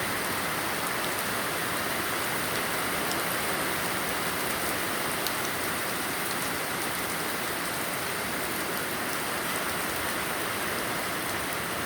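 Heavy rain falling steadily, a dense even hiss with scattered drop ticks on hard surfaces.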